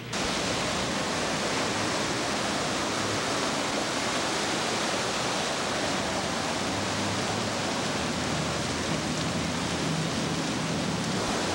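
Torrential tropical rain pouring down in a steady, dense hiss, as a storm floods the streets. A faint low engine hum sits underneath in the second half.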